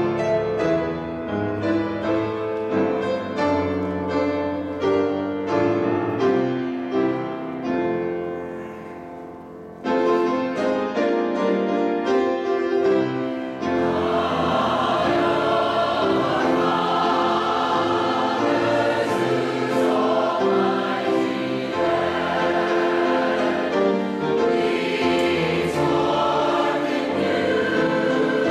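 Church choir singing with piano accompaniment: the piano plays alone at first, and the full choir comes in about halfway through.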